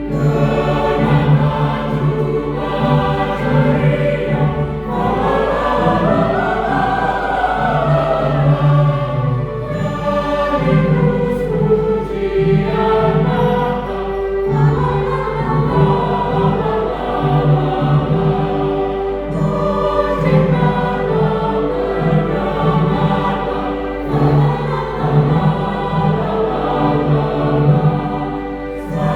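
Church choir singing a Christmas hymn in several voice parts, a continuous passage of sung chords.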